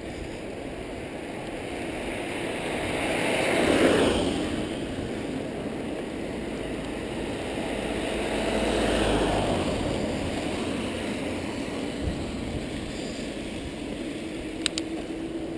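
Road traffic passing on a wet city street: a steady hiss of tyres and engines that swells as one vehicle goes by about four seconds in and another, with a deeper rumble, about nine seconds in.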